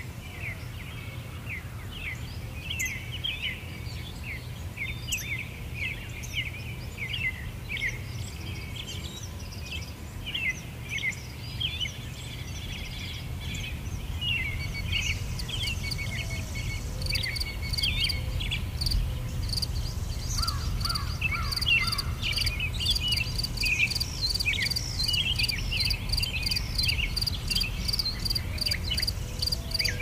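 A flock of birds calling with many short, quick calls over a steady low rumble. About halfway through, a rapid high-pitched insect trill joins in and keeps going.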